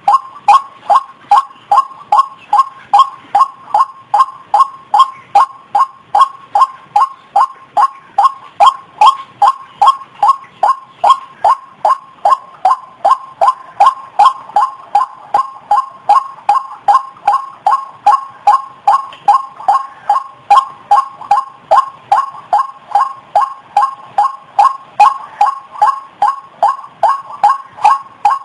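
White-breasted waterhen (ruak-ruak) calling: a long, even run of identical loud notes, about two and a half a second, without a break.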